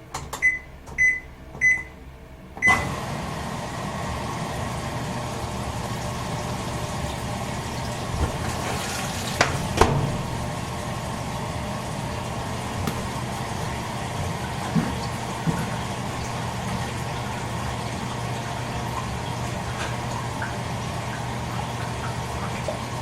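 Toshiba AW-42SEE4 fully automatic washing machine starting up: its control panel beeps four times, then it runs steadily with a low hum and the noise of water filling the tub, with a couple of knocks about ten seconds in.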